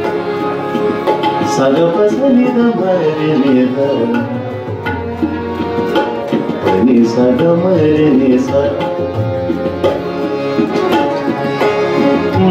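Instrumental interlude of devotional kirtan music: harmonium and violin carry a wavering, sliding melody over tabla, with acoustic guitar.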